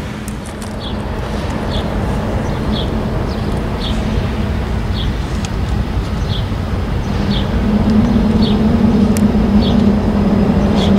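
Diesel freight locomotive approaching from a distance: a steady rumble with an engine drone that grows louder about two-thirds of the way in. A short high chirp repeats about once a second over it.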